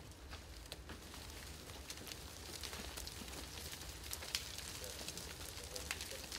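Scattered crackles and rustling from a rope rescuer climbing down a loose shale rock face through dry brush, over a steady low rumble.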